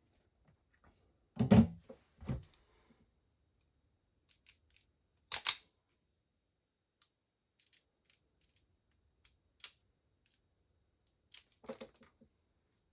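Hand tools and parts handled on a workbench: a few scattered knocks and sharp clicks, the loudest knocks about a second and a half in, with a sharp click a few seconds later and a small cluster near the end.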